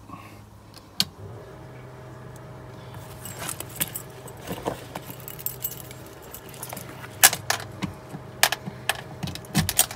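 Engine-compartment bilge blower switched on with a click about a second in, then running with a steady hum. From about three seconds in, a bunch of keys jangles and clinks as the ignition key is handled and fitted into the switch.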